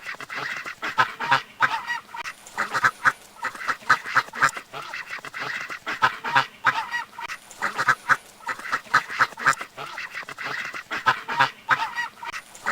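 Duck quacking in quick runs of short, repeated quacks.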